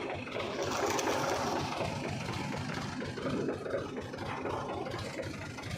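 A 480 tractor's diesel engine (1994 model) running steadily with a rapid, even firing beat, and a louder rush of hiss about a second in.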